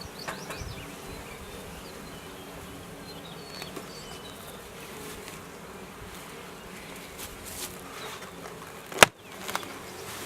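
Honey bees buzzing around the hive in a steady hum. A single sharp knock sounds about nine seconds in.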